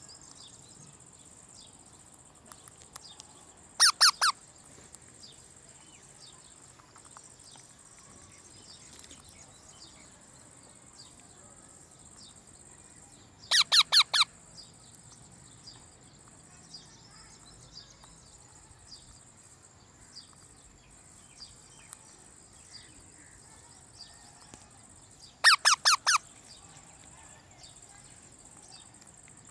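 A parrot giving three short bursts of rapid, shrill repeated calls, each burst of three to five notes and roughly ten seconds apart. A steady high-pitched insect drone and faint chirps run underneath.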